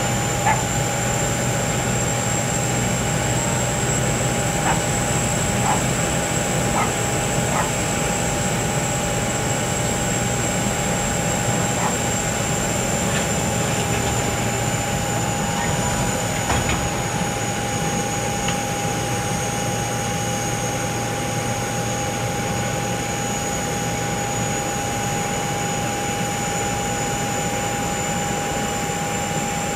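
Boeing 737-800 airliner on the ground, running with a steady jet whine: a constant rush carrying a high tone and a mid-pitched tone, with a few faint clicks.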